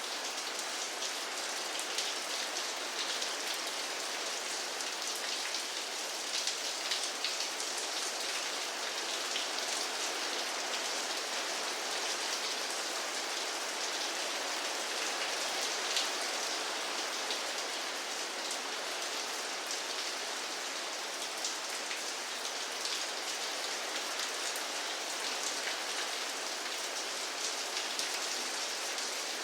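Steady rain falling, a dense even hiss with many fine patters of individual drops hitting a surface.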